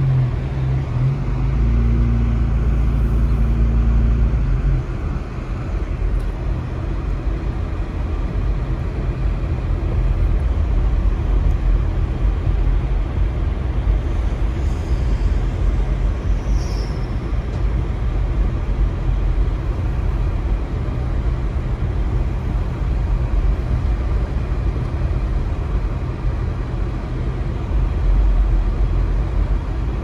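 A car driving on a snow-covered road, heard from inside the cabin: a steady low rumble of engine and tyres. An engine drone is stronger over the first few seconds, then settles.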